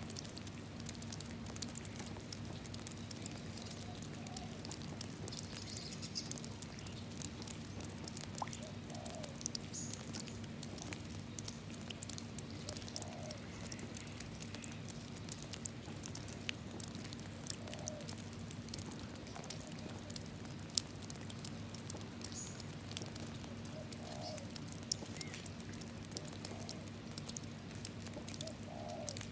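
Rain falling into a puddle: a steady patter of many small, irregular drops, over a steady low hum. Faint bird calls come through every few seconds.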